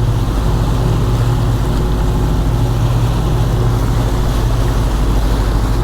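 Sport-fishing boat's engines running steadily at low speed, a constant low drone, with wind and water noise over it.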